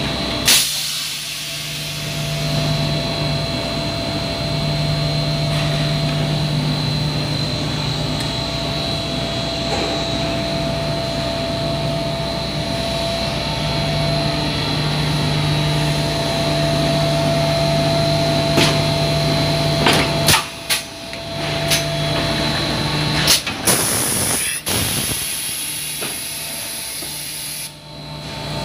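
HDPE bottle extrusion blow moulding machine running: a steady hum with a thin whine over it. In the last third come several sharp clicks and a burst of air hiss as the moulds work.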